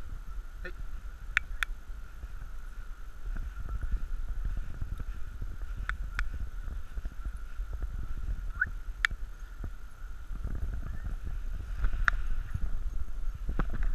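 Footsteps of a person walking on a dirt trail, heard as an uneven low thudding and rumble through a body-worn camera, louder in the last few seconds. Now and then there is a sharp click, over a faint steady high tone.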